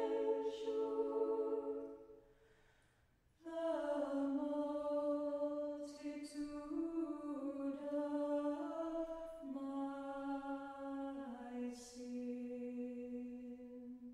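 Church choir singing an Orthodox hymn a cappella, in slow sustained chords to a melody adapted from a Bulgarian folk tune. A held chord fades about two seconds in, then after a short breath the next phrase begins and moves through several held notes before closing on a long note.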